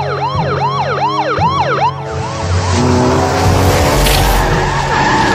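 Police siren sound effect yelping in quick rising-and-falling sweeps, about three a second, which stops about two seconds in. It gives way to a loud rushing whoosh as a rocket-boosted vehicle speeds by, with music underneath.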